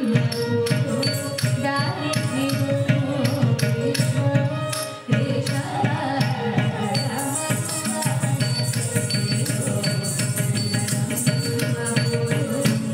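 Carnatic music accompanying Bharatanatyam dance: a steady rhythm of short percussion strokes over a sustained melodic line, dipping briefly about five seconds in.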